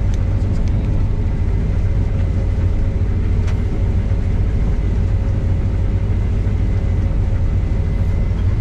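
Case combine harvester running steadily under harvest load: an even, loud low engine rumble with a faint steady whine above it.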